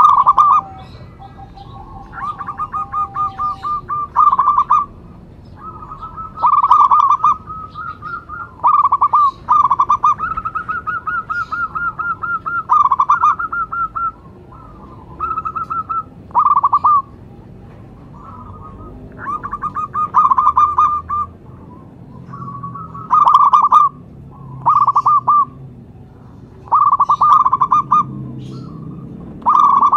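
Zebra dove (perkutut) cooing: repeated phrases of rapid stuttering notes, a dozen or so one after another with short pauses between.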